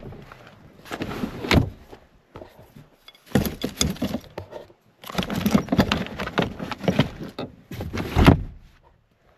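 Rummaging in a pickup truck's rear cab: handling, rustling and knocking of loose items in several bursts, with a sharp thump about eight seconds in.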